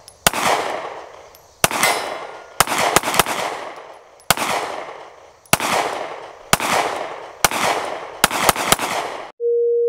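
Glock 43X 9mm pistol firing a string of about a dozen shots at an uneven pace, some in quick pairs, each shot ringing off in an echo. A steady electronic tone starts about half a second before the end.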